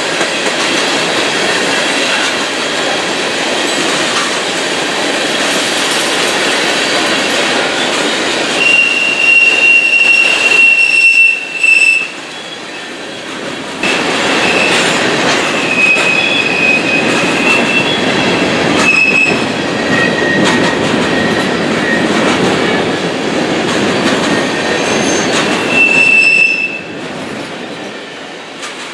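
Freight train rolling past, its cars rumbling over the rails. A high-pitched wheel squeal comes and goes in three spells: a long one about a third of the way in, another mid-way, and a short one near the end.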